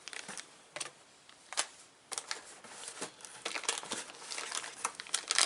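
Plastic parts bags crinkling and rustling as they are handled, with small clicks and taps; sparse at first, busier from about two seconds in.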